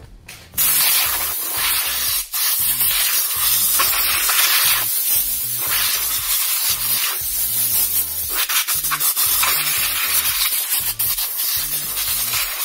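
Compressed-air blow gun blasting caked dust out of an opened wall sander's motor housing: a loud, continuous rushing hiss that starts about half a second in, with a brief break about two seconds in.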